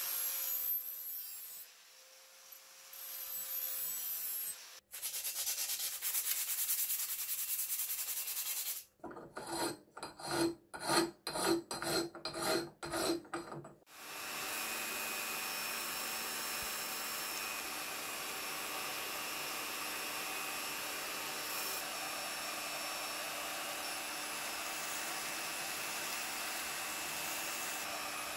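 Workshop sounds in three parts. First a few seconds of hiss, then a run of loud scraping strokes, about two a second. Then, about fourteen seconds in, an electric rotary polisher with a foam pad starts suddenly and runs steadily with a faint whine.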